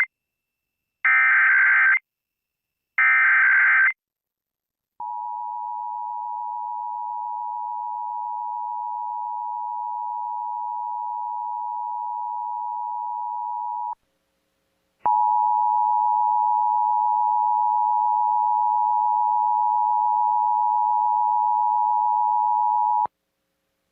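Emergency Alert System test: the last two of three short, screechy SAME header data bursts, then the steady two-tone EAS attention signal. The attention signal sounds for about nine seconds, breaks off for a second, and comes back louder for about eight more seconds.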